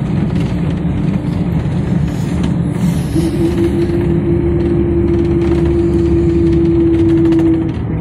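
Engine and road noise inside a moving local bus. A steady whine sits above the rumble, steps slightly up in pitch about three seconds in, and stops shortly before the end.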